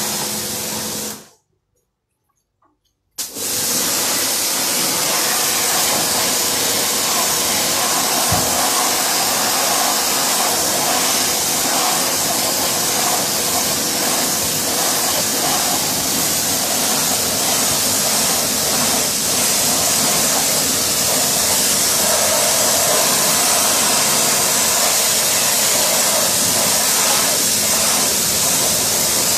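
High-pressure water jet from a pressure-washer lance hissing steadily as it rinses wheel cleaner off a car's alloy wheel. It breaks off into silence for about two seconds shortly after the start, then resumes.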